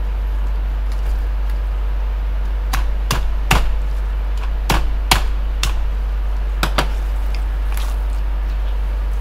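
A kitchen knife cutting through the head and backbone of a young yellowtail (warasa) on a plastic cutting board: a string of sharp cracks and knocks, about nine of them, between about three and eight seconds in. A steady low hum runs underneath throughout.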